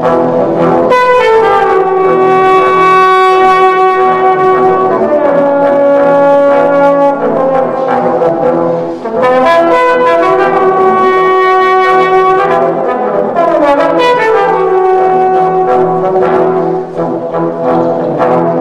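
Trombone quartet playing long held chords, four trombones sounding together. The phrase breaks briefly about halfway through and again near the end.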